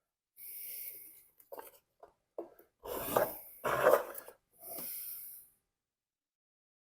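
Workbench handling noise from fitting new fuel lines to a small-engine fuel tank: knocks and rattles of plastic parts, loudest a little past the middle, between two short hisses about a second long each.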